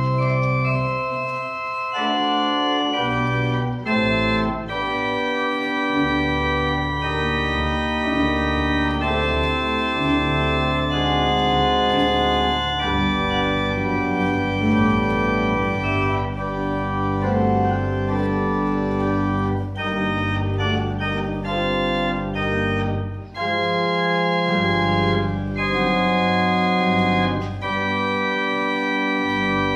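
Church organ playing a slow piece in sustained chords that change every second or two, with a short break in the sound about three-quarters of the way through.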